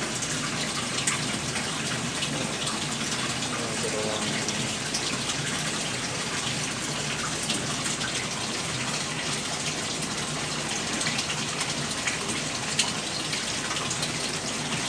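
Water running steadily into a live seafood holding tank: an even rush, with a few faint clicks.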